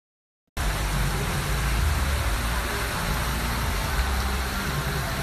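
Steady rushing and splashing of a large lit musical fountain's water jets, with a low rumble underneath. The sound starts abruptly about half a second in, after a silent gap.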